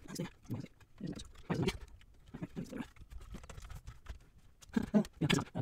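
Fast-forwarded sound: a man's muttering and the handling of parts, sped up into quick chattering bursts several times a second, with a few sharp clicks. The loudest bursts come near the end.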